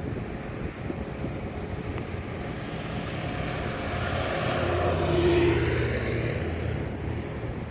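Motorcade vehicle driving past, its engine and tyre noise swelling to a peak about five seconds in and then fading.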